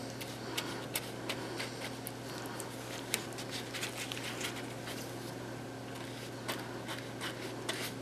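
Soft irregular clicks, taps and rustles of gloved hands handling a hollow papier-mâché coconut and brushing decoupage medium onto it, over a steady low hum.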